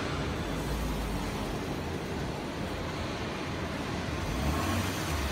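Steady machinery noise with a low rumble and an even hiss, at a constant level.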